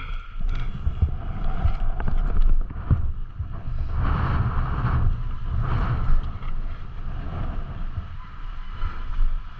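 Mountain bike riding downhill in strong wind: wind buffeting the microphone in gusts, with tyres running over loose dirt and a few knocks from the bike.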